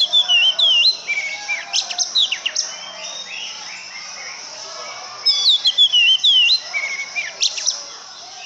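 Oriental magpie-robin (kacer) singing: a fast phrase of clear whistles, sweeps and sharp chirps, repeated the same way twice about five seconds apart, with softer notes between.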